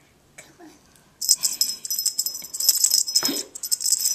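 Feather wand cat toy jingling and rattling in quick, bright shakes as a Himalayan kitten bats and bites at it, with a short lower sound about three seconds in.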